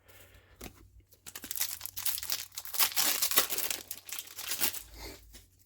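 Crinkling and tearing of a foil booster-pack wrapper handled by hand: a dense run of crackles for about three seconds after a quieter start.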